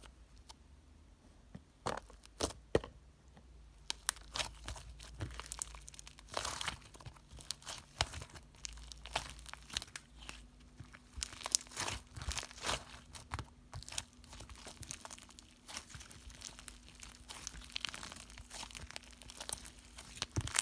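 Clay being mixed and squished by hand: irregular sticky crackles and clicks that start about two seconds in and come thicker from about four seconds on.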